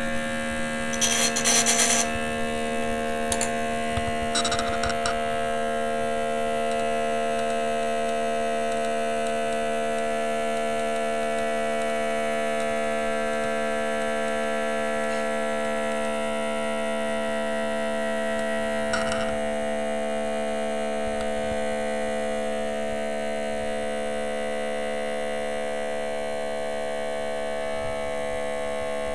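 Small electric motor running steadily on supercapacitors with a buzzing hum of several steady tones. A few brief clicks and rustles come in the first five seconds and once more about two-thirds of the way through.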